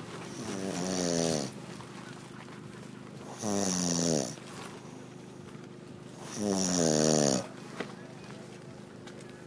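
A man snoring in his sleep: three long snores at an even pace, about three seconds apart, each one sliding slightly down in pitch with a breathy hiss over it.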